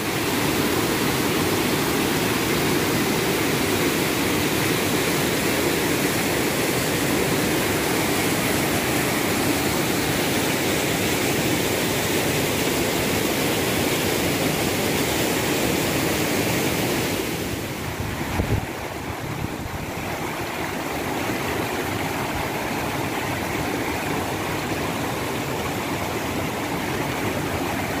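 Steady rushing of a small waterfall and its rocky stream, white water pouring over rock. A little past halfway the rush turns quieter and duller, with one brief low knock, then settles into a softer steady flow over the rapids.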